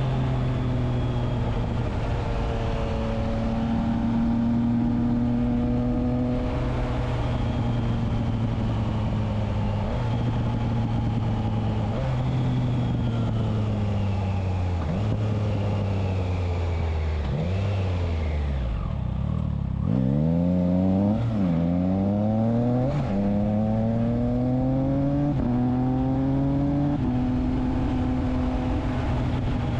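Triumph Trident 660's inline three-cylinder engine through a Spark exhaust with the dB killer fitted, running at a steady cruise, then closing off and dropping sharply in pitch past the middle. It then pulls away hard through several quick upshifts, each a rising sweep that drops back, before settling to a steady note near the end.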